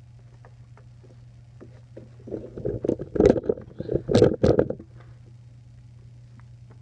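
Close rubbing and bumping from the recording device being handled and turned, lasting about two and a half seconds from about two seconds in, over a steady low hum.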